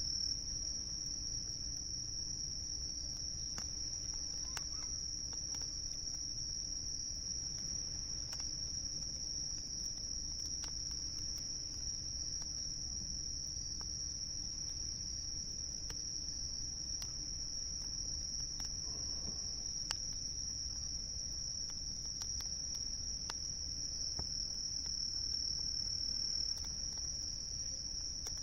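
Crickets trilling in one unbroken high chorus, with scattered sharp crackles from a wood campfire and a steady low rumble underneath.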